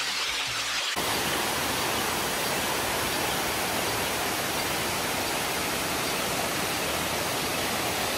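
Goa Tetes waterfall rushing: a steady, even wash of falling water that starts abruptly about a second in.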